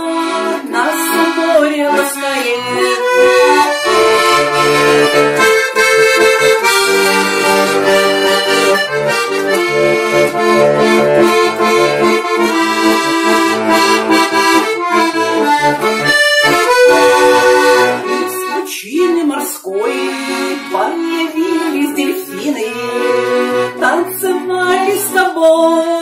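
Button accordion playing an instrumental break of a cheerful song: a melody of held notes over a regular bass-and-chord beat.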